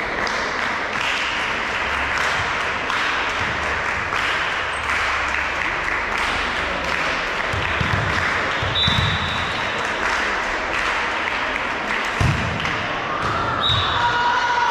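Crowd noise in a sports hall during a volleyball match: a steady din of spectators, with dull thumps of the ball about eight and twelve seconds in.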